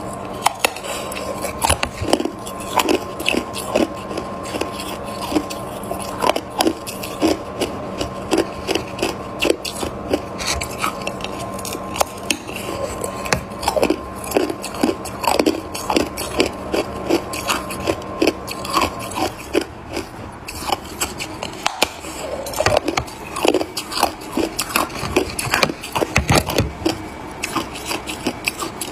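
Ice being bitten and chewed close to the microphone: a long run of sharp, irregular crunches, several a second, with short gaps between bites.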